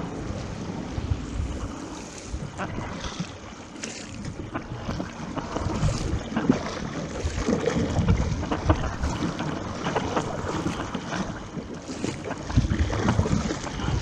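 Water splashing and rushing around a surfski as it is paddled at sea, with irregular splashes and wind noise on the microphone.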